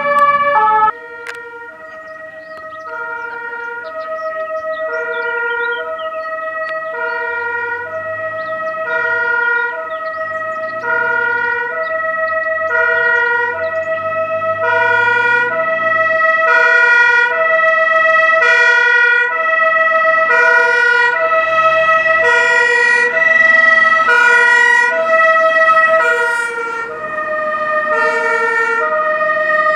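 German two-tone fire-engine siren (Martinshorn) on a TSF-W fire truck, switching between a lower and a higher note about once a second. It grows steadily louder as the truck approaches, with the truck's engine rumbling underneath.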